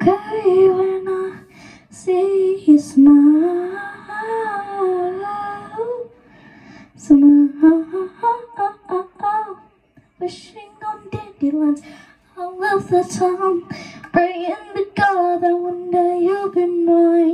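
A young girl singing alone into a handheld microphone, with no backing music: phrases broken by short pauses, several notes drawn out. Near the end she holds one note steady for a couple of seconds.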